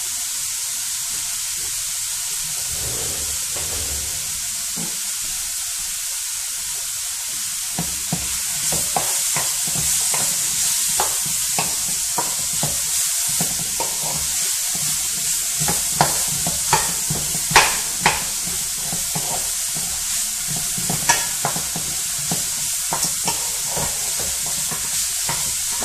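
Sliced onion sizzling as it fries in a hot pan, a steady hiss. From about a third of the way in, a wooden spatula stirs and scrapes it around the pan, with scattered sharp knocks of the spatula against the pan.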